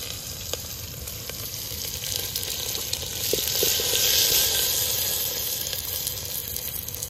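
Chopped onions sizzling in hot oil in a metal pot over a wood fire, stirred with a spatula. The sizzle swells to its loudest about halfway through, with a few light clicks of the spatula against the pot, and cuts off suddenly at the end.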